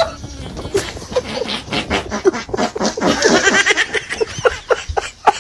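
Animal cries: many short, pitched calls in quick succession, with a stretch of higher chirping about three seconds in.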